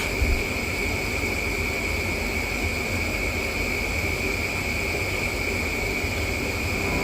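Steady hiss with a low rumble and a constant high-pitched whine; a brief thump about a quarter of a second in.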